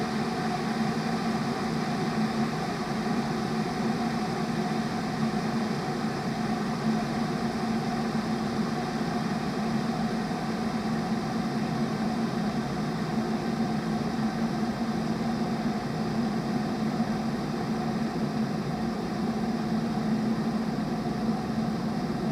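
Kettle boiling: a steady rushing noise with a low hum, without a whistle.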